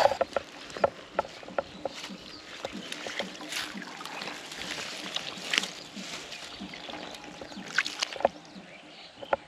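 Water splashing and sloshing in irregular bursts, with small sharp clicks and knocks, as a freshly hooked eel is landed and handled at the water's edge.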